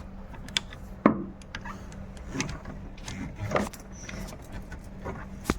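Hand tools clicking, knocking and scraping against metal while a wrench is worked onto a car's oil filter, over a steady low hum.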